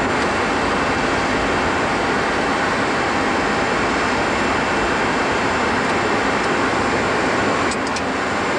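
Steady rushing noise on the flight deck of a Boeing 747-200 taxiing after landing, with a few faint clicks near the end.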